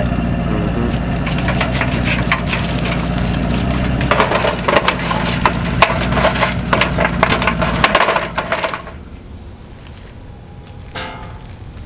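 Quick crackling and clicking from freshly caught live shrimp kicking in a bucket of water, over a steady low hum. It drops off suddenly about nine seconds in, leaving a quieter background.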